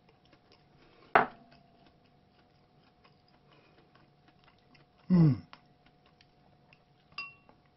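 Chopsticks clicking against a ceramic bowl during eating: one sharp click about a second in, faint small clicks after, and a clink with a brief ring near the end. About five seconds in, a short 'mm' from the eater falls in pitch.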